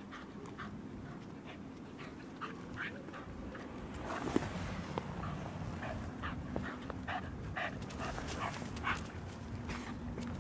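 Small dog breathing in short, quick puffs through its nose and mouth while following a scent track on a line. The puffs grow louder and come closer together about four seconds in.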